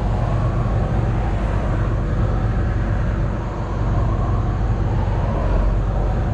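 Excavator's diesel engine running steadily, heard from inside the operator's cab.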